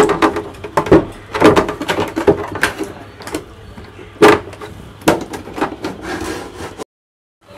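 Hard plastic knocks, clicks and rubbing as the top tank and front housing of a wall-mounted RO water purifier are handled and worked loose. The knocks come irregularly, and the sound drops to dead silence for a moment near the end.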